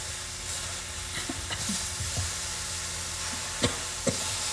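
Vegetables sizzling steadily in a hot pan while they are stirred and pushed aside with a cooking utensil, with two sharp knocks of the utensil against the pan near the end.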